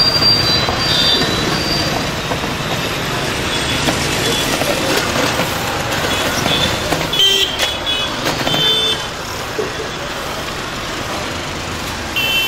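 Busy street traffic: motor scooters and other vehicles running past, with short horn toots a few times, clearest about halfway through.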